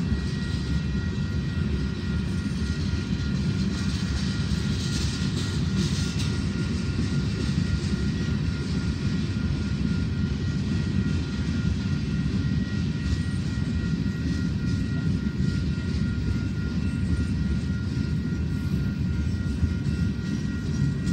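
Freight train's covered hopper cars rolling past: a steady low rumble of wheels on the rails, with a thin steady high whine above it.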